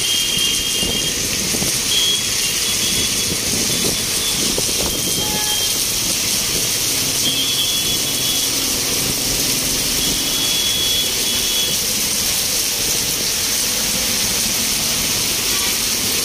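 Heavy rain pouring down on a street, a steady loud hiss, with traffic moving on the wet road underneath. A few short, high vehicle-horn beeps sound over it, near the start, about two seconds in, and twice more later on.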